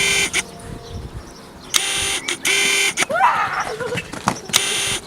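Car horn sound effect honking in short double beeps, each pair steady in pitch with abrupt starts and stops, repeating about every three seconds. A short warbling sound comes between two of the pairs.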